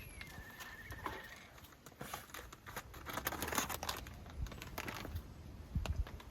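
Crinkling and rustling with scattered light clicks and taps, densest about three seconds in, and a couple of low thumps near the end.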